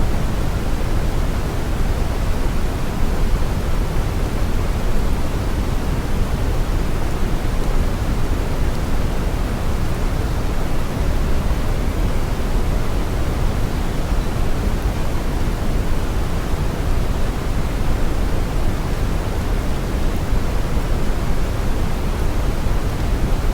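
Steady synthetic brown noise: an even, unbroken hiss weighted heavily toward the deep low end, with no change in level.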